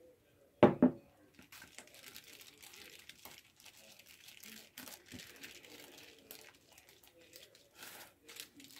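A mixing bowl set down on the table with two loud knocks, then a spatula scraping and spreading thick batter in a foil-lined loaf pan, the foil crinkling under it.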